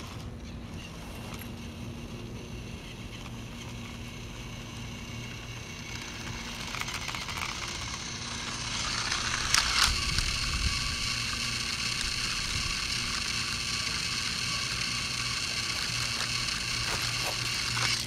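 Battery-powered Thomas toy engine's electric motor and gears whirring with a steady high whine as it runs on plastic track. The whine grows louder from about six seconds in. A sharp click comes just before the tenth second, after which the whine holds level.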